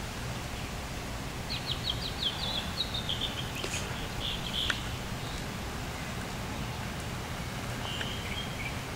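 A bird calling from the surrounding trees: a quick run of short chirps beginning about a second and a half in and lasting around three seconds, then a shorter call near the end, over a steady low background hiss.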